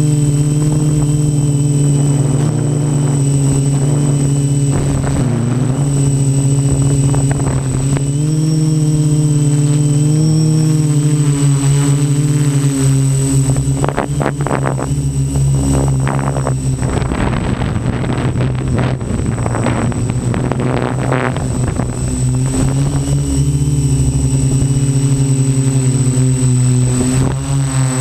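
Quadcopter's electric motors and propellers humming steadily, heard from the camera on board, the pitch rising and falling a little as the throttle changes, with a thin steady high whine above it. For several seconds in the middle, irregular rough noise crackles over the hum.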